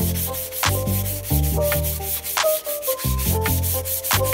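Background music with a bass line and a steady beat, and over it the brisk strokes of a hand rubbing a dark-stained wooden axe handle with a pad.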